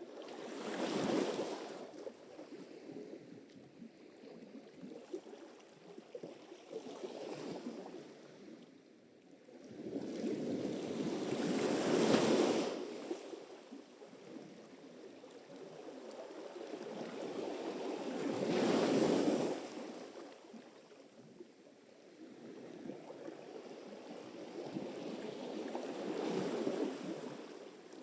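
Sea surf: waves breaking and washing up the shore in slow surges, one every six or seven seconds, the loudest about a third of the way in.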